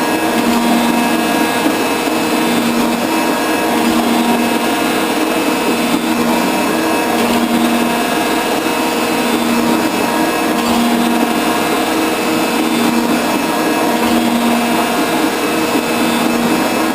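Metal shaper running with a shear tool taking a finishing cut. The ram's stroke repeats about once every 1.7 seconds, a hum rising and dropping away with each cycle over the machine's steady running noise.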